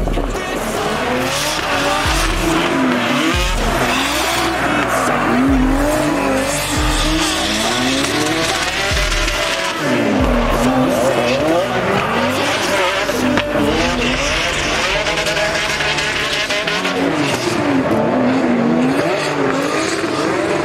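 Drift cars in a tandem run, engines revving up and down over and over as they slide through the corners, with tyre squeal.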